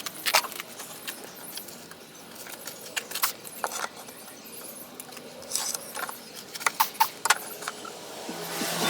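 Scattered light clicks, taps and rattles of objects being handled and moved about, with a hum rising near the end.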